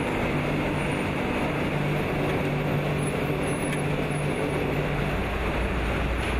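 Tea-leaf rolling machines running together: a steady, even mechanical noise with a low hum underneath.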